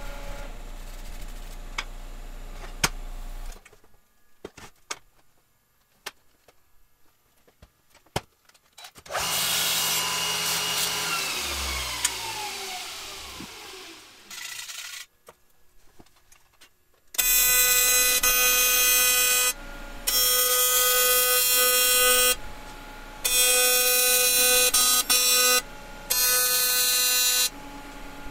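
Miller Dynasty 400 AC TIG welding arc buzzing on aluminium, struck four times in runs of two to three seconds through the second half. Earlier a whirring sound falls steadily in pitch for several seconds.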